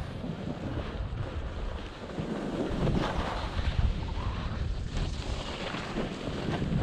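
Wind rushing over the microphone of a skier's camera during a downhill run, mixed with skis scraping and chattering over chopped-up, crusty snow. The rush swells about two and a half seconds in and again near the end as the skier turns.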